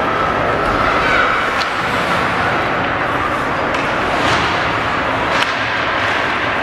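Ice hockey arena ambience: a steady hubbub of the rink and spectators, with a few sharp clacks from sticks, puck or boards, the first about one and a half seconds in and two more in the second half.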